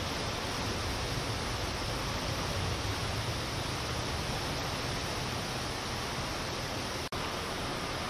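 River in flood pouring over a weir and churning downstream: a steady rushing noise of fast, turbulent water. It cuts out for an instant about seven seconds in.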